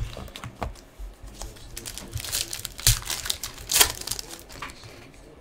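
Panini Prizm soccer card pack being opened by hand, its shiny wrapper crinkling in bursts, loudest about three and four seconds in. There is a thump at the very start.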